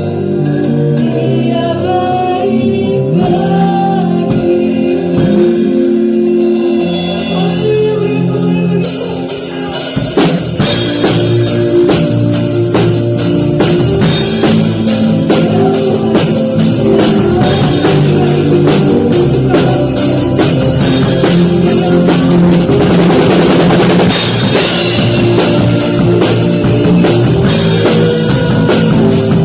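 Live worship band playing: sustained keyboard and voices at first, then the acoustic drum kit comes in with the full band about ten seconds in, with steady beats and cymbals over electric guitar and bass.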